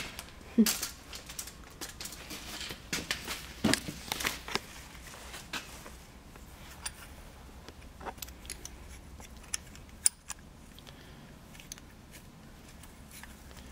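Scattered light metallic clicks and knocks of small parts being handled and pushed into a sidevalve engine block. They are busier in the first few seconds, then sparse, with one sharp click about ten seconds in.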